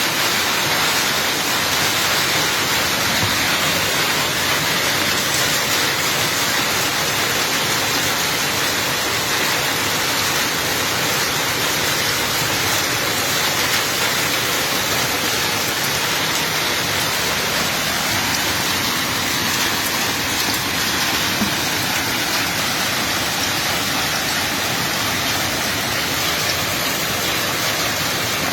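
Heavy rain pouring down steadily in a thunderstorm with hail.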